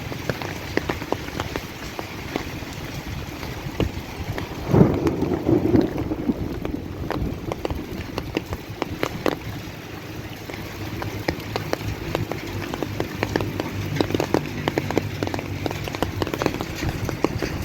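Rain falling, a steady hiss broken by many separate sharp drop ticks. About five seconds in comes a brief, louder low rumble.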